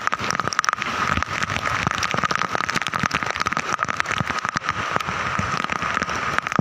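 Heavy monsoon rain falling, a dense patter of drops hitting close by, with a steady high tone running underneath.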